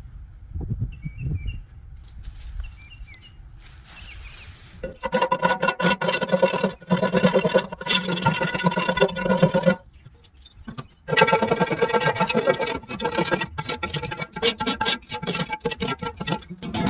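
Wire brush scrubbing rust from the inside of a cast iron Dutch oven in fast strokes, the iron pot ringing at several steady pitches as it is scoured. The scrubbing comes in two long runs, from about five seconds in and again after a short pause near the ten-second mark. The first seconds are quieter, with a few knocks.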